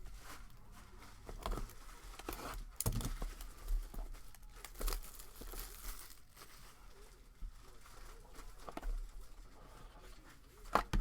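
Trading card pack wrappers crinkling and tearing as packs are opened, in a series of short irregular rustles and snaps.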